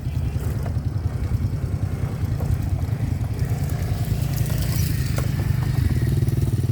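A small engine running steadily with a fast, even low pulse.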